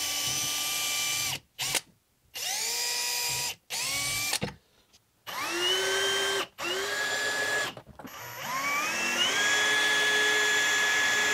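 Cordless drill driving screws to fasten a hinge to a plastic tool box, in repeated short runs. Each run's motor whine rises as it spins up and then holds steady; the last run is the longest, about three seconds near the end.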